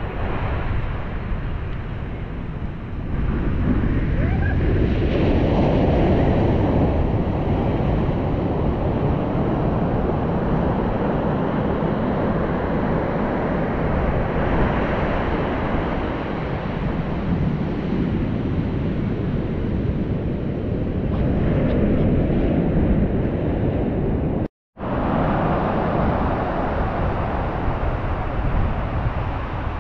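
Ocean surf: waves breaking and washing in, swelling and ebbing, with wind buffeting the microphone. The sound cuts out to silence for a moment late on.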